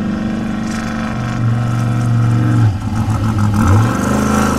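Off-road race vehicle's engine running, its pitch stepping down about a second in, then wavering and dipping around the middle before settling steady again near the end.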